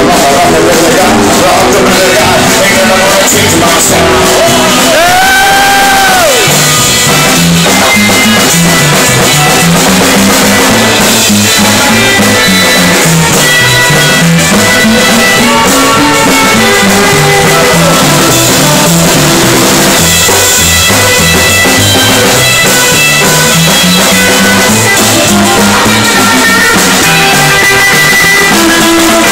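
Live band playing loud: an upright double bass plucking a moving bass line under electric guitar. About five seconds in, a high note bends up and back down.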